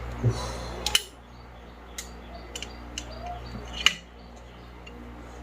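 Scattered sharp clicks and taps of hand tools and wires being handled while a ceiling fan's capacitor wiring is connected, the loudest click a little after the middle. A faint low hum drops away about a second in.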